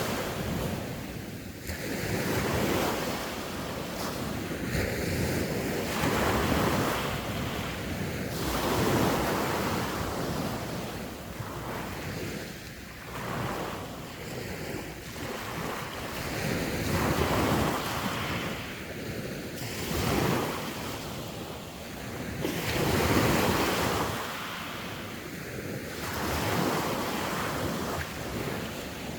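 Sea waves breaking and washing on the shore, the surf rising and falling in swells every few seconds, with wind buffeting the microphone.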